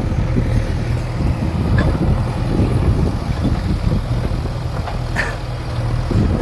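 JCB 3DX backhoe loader's diesel engine running steadily, with a few short knocks around two and five seconds in.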